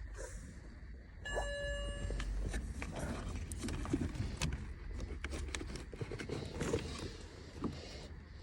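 Clicks, knocks and rustling from hands pushing wiring and fitting parts into a car's dashboard. A brief tone with overtones sounds about a second and a half in.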